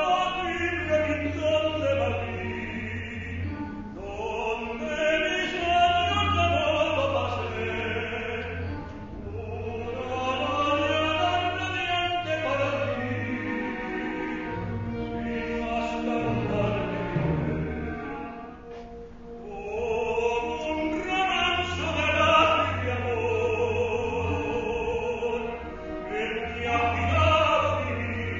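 A male operatic voice singing a zarzuela number in long, full-voiced phrases, its held notes carrying a strong vibrato, with orchestral accompaniment underneath.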